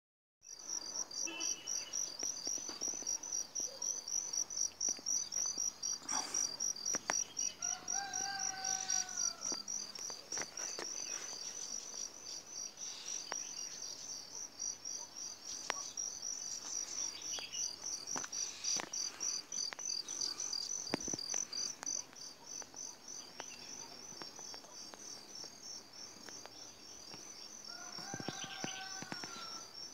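Insects chirping steadily, a high, evenly pulsing trill that runs without a break, with a couple of short arched calls over it, about eight seconds in and near the end.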